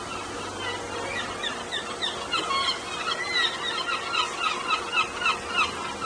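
Gulls in a colony calling. Scattered overlapping cries give way, about two seconds in, to a rapid run of loud repeated calls, about three a second, loudest near the end.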